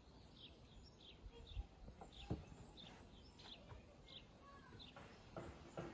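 A knife cutting through soft dough and knocking on a wooden cutting board a few times, the loudest knock about two seconds in. A bird chirps in short repeated notes in the background.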